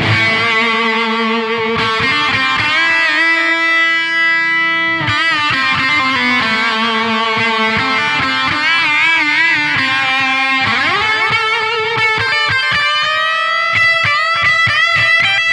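Distorted electric guitar playing a slow lead of long held notes with wide vibrato, with a rising slide about eleven seconds in.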